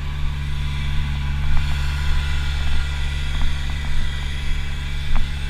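Steady low droning hum with a few faint clicks, muffled as heard through a waterproof camera case.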